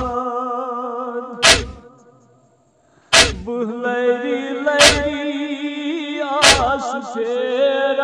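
Men chanting a noha, a Shia lament, in long held and wavering notes, kept in time by a sharp matam (chest-beating) thump about every second and a half, five in all. The chant fades out about two seconds in, leaving a second of near silence, and comes back with the next thump.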